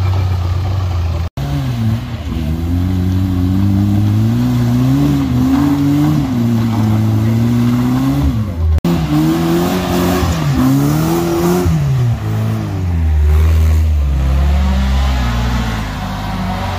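Off-road 4x4 engines, a Suzuki Samurai's among them, revving up and down hard under load as they climb a steep mud slope. The sound breaks off abruptly twice and resumes with a different engine.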